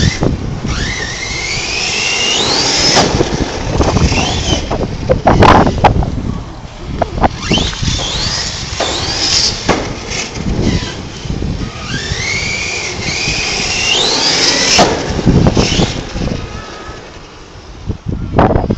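Electric RC car's motor on a 4S LiPo battery whining up in pitch as the car accelerates, three times over, each whine climbing steeply.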